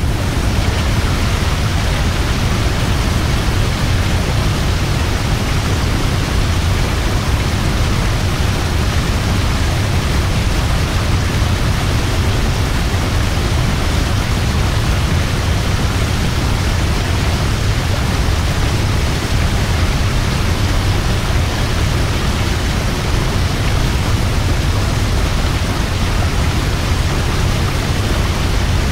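Large waterfall: a steady, loud rush of falling water with a deep low rumble.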